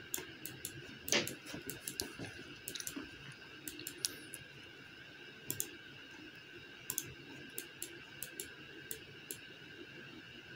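Computer mouse clicking at an irregular pace, sometimes in quick pairs, over a faint steady hum.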